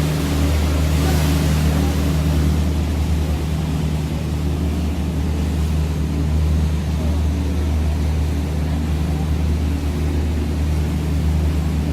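Steady low drone of a Seine sightseeing cruise boat's engine, heard on board, with a hiss of wind and water over it that is stronger in the first second or two.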